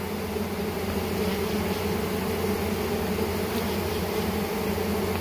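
Steady buzzing hum of a honey bee colony crowded on the top bars of a hive box.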